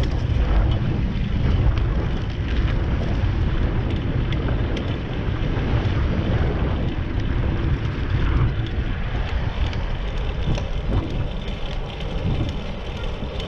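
Wind buffeting the microphone of a bicycle-mounted camera while riding: a steady low rumble with road and tyre noise. Scattered small clicks and rattles run through it.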